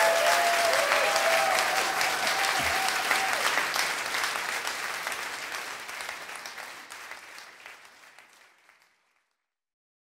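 Audience applauding a live band, with a few drawn-out whooping voices over the first few seconds. The clapping fades steadily down to silence by near the end.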